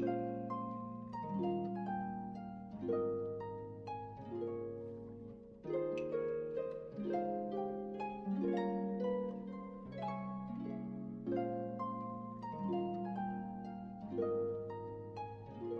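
Background music: gentle plucked-string notes, harp-like, in a steady rhythm.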